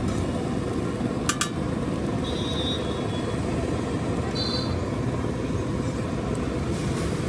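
Busy street noise: a steady low rumble of traffic, with a couple of sharp clinks about a second and a half in and two brief high tones later.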